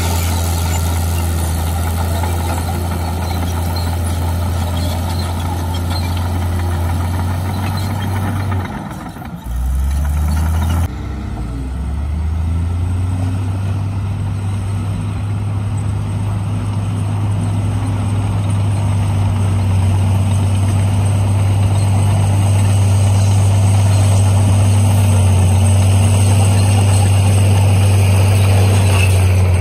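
Heavy diesel engines running steadily with a deep drone. After a break about ten seconds in, a Dongfeng dump truck's diesel engine runs on with its tipper bed raised, unloading dirt, slowly growing louder.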